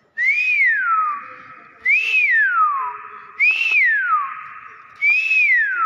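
Hill myna (beo) whistling four times, each note rising briefly and then sliding down in a long falling glide, about every second and a half.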